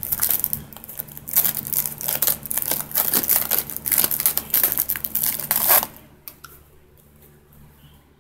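Dense crinkling and rustling that stops suddenly about six seconds in, leaving a faint low steady hum.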